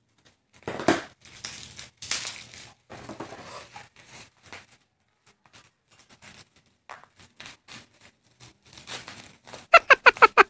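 Plastic bubble wrap crinkling and rustling as it is snipped with scissors and pulled off a wrapped bottle, in irregular handling noises. Near the end comes a quick run of about eight loud pulses.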